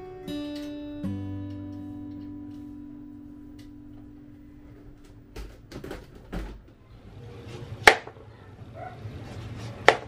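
Gentle acoustic guitar background music that fades out about five seconds in. It is followed by kitchen handling sounds: light clatter and two sharp knocks, one about eight seconds in and one near the end.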